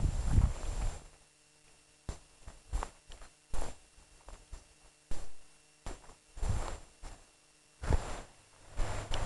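Footsteps through long grass, an uneven series of swishing steps with dull thuds, the heaviest near the start, over a faint steady hum.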